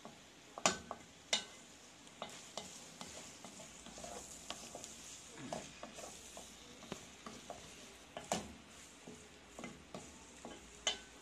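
Wooden spatula stirring okra and potato in a stainless steel pot, with a soft sizzle from the frying vegetables and a few sharp knocks of the spatula against the pot.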